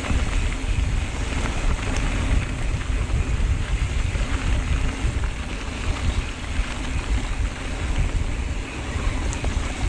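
Wind rushing over a GoPro camera's microphone, with the rumble of mountain bike tyres on a dirt trail, while riding at speed through berms.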